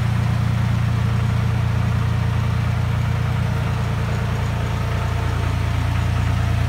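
GAZelle van's ZMZ-405 inline-four petrol engine running steadily with an even low hum.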